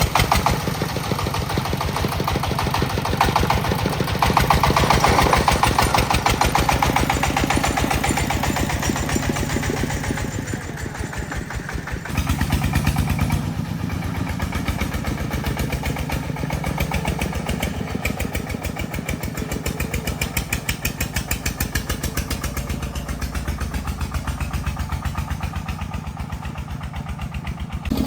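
A vehicle engine running steadily as it drives off, with an even rapid pulsing; its note shifts about twelve seconds in.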